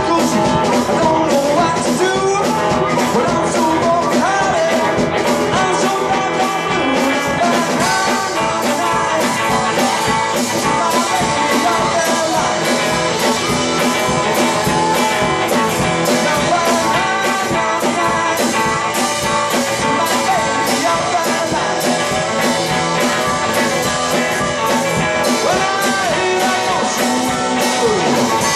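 Live blues band playing an instrumental passage: harmonica leading with bending notes over a hollow-body electric guitar and a steady drum-kit beat.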